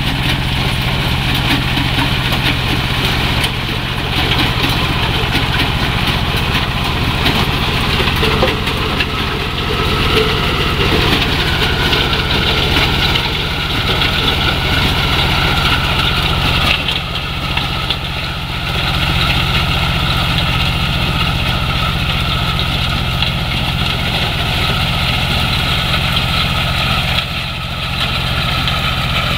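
Combine harvester working corn: its engine runs with a loud, steady drone under a dense mechanical whir from the machinery.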